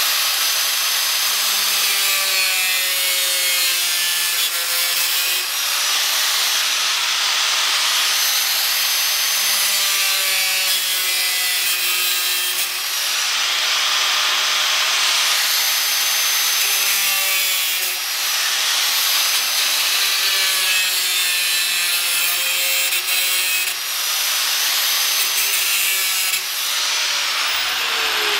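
Small angle grinder with a cut-off disc, running continuously and cutting through a chiller's perforated sheet-metal side panel. Its steady high whine and grinding noise swell every few seconds as the disc bites, and near the end the motor is switched off and its pitch falls as it spins down.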